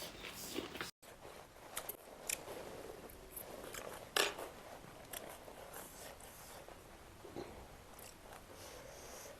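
Close-miked eating sounds: a person biting and chewing food, with several sharp crisp crunches, the loudest about four seconds in.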